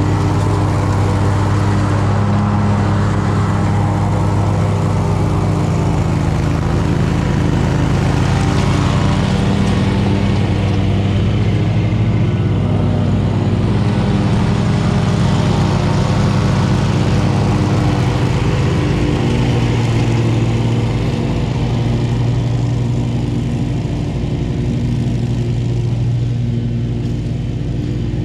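Scag V-Ride 2 stand-on commercial mower running steadily while mowing, its engine and cutting deck giving a constant drone. The sound eases slightly about two-thirds of the way in.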